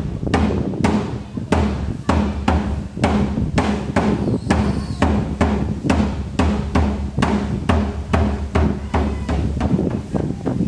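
Background music with a steady drum beat, about two strikes a second, over a sustained low bass.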